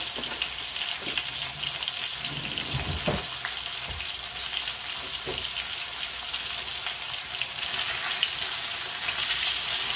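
Chicken thighs frying in a pan of oil and the water they have given off: a steady sizzle, with a few light knocks and a little more sizzle near the end as a piece is lifted to check its underside.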